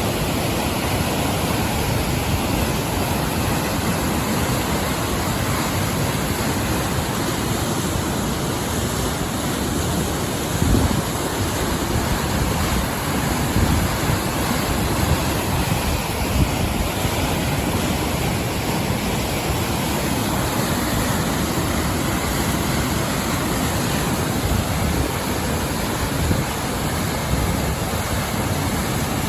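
River in very high spate pouring over a waterfall: a loud, steady rush of water, with a few brief low gusts of wind on the microphone.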